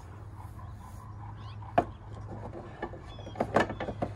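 Sharp wooden knocks as a cherry canoe seat is fitted under the gunwales of a wooden Rushton canoe. There is one knock a little under two seconds in, then a quick cluster of knocks past the three-second mark.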